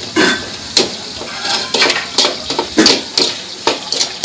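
Metal ladle scraping and knocking against a steel wok, about two or three irregular strokes a second, over the steady sizzle of food stir-frying.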